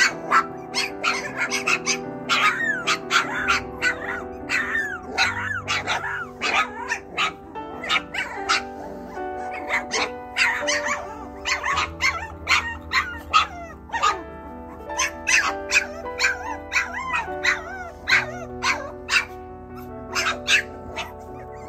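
Mini goldendoodle puppies yipping and barking in frequent short, high-pitched bursts, over background music with sustained notes.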